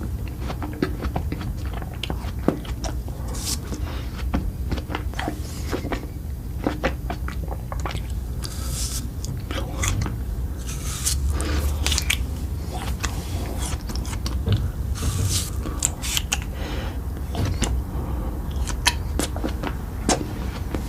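Close-miked chewing and biting of food, with irregular sharp clicks and crackles all through, over a steady low hum.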